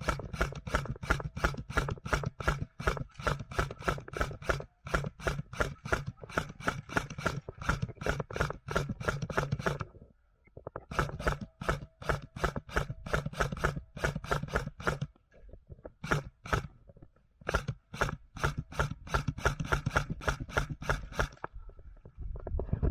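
Quick, even footfalls of a running player, about four a second, in long runs broken by a few short stops.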